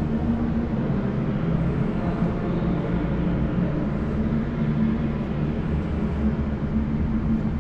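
Steady low mechanical hum with a few held low tones, unchanging throughout.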